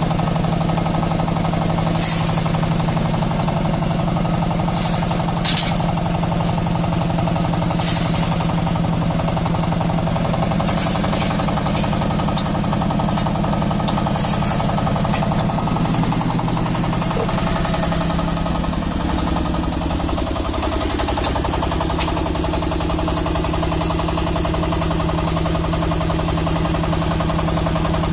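The block machine's 15.2 kW diesel engine runs steadily, driving the hydraulic unit. A few short sharp noises are heard over it in the first half.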